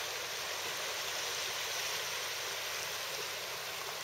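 Steady outdoor hiss of wind and water, even and unbroken, with no distinct events.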